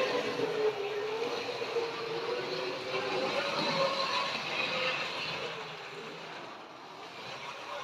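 Model locomotive's electric motor whining at a steady pitch with a hiss of running noise, fading after about five seconds.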